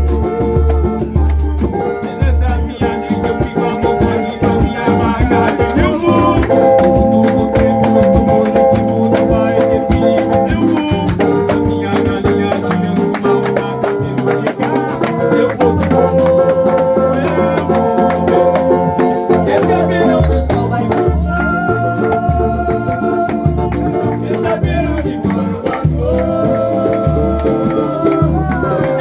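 Samba music with a drum beat and a shaker-type rattle, with held melodic notes over the rhythm.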